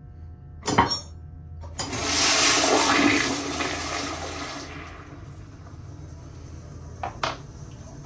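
Tank-type toilet flushed by its trip lever. The lever clicks, and about a second later the water rushes into the bowl, loudest at first, then dies away to a low trickle. Two quick knocks come near the end.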